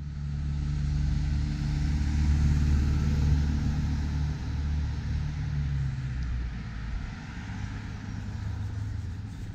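An engine's low, steady hum that fades out about six seconds in, over a steady background hiss.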